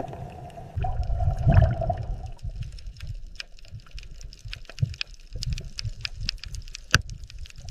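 Underwater sound on a coral reef: low bubbling and gurgling, loudest in the first couple of seconds, then scattered sharp clicks and crackles.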